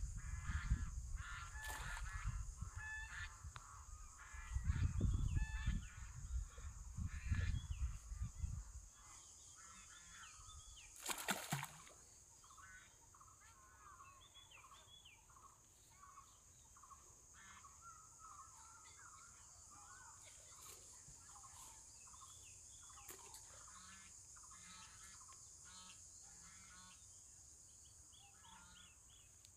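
Domestic fowl calling over and over, many short calls. A steady high hiss sits under them, and a low rumble is loudest for the first nine seconds.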